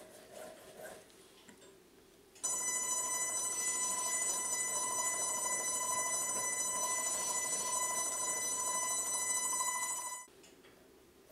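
A file squealing against a brass clock fusee turning in the lathe: a loud, steady, high-pitched squeal that starts suddenly about two seconds in and cuts off abruptly near the end, as the file chatters on the soft brass.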